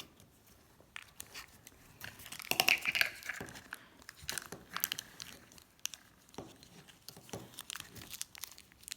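Small plastic packet crinkling and rustling as it is handled and torn open, in irregular crackles that are busiest about three seconds in.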